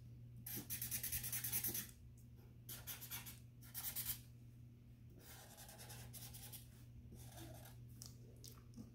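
Yellow Sharpie marker scratching back and forth on paper while colouring in, in several short bursts of strokes, strongest in the first two seconds and fading to light strokes after about five seconds.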